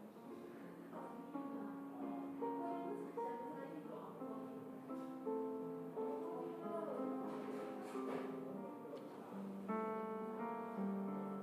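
Instrumental background music: a slow melody of held notes, with fuller chords about ten seconds in.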